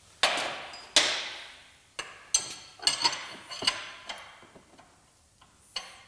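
Steel spanners clinking and clanking on a suspension-arm bolt as it is worked tight by hand: a string of sharp metallic strikes, each ringing briefly, thinning out after about four seconds, with one more strike near the end.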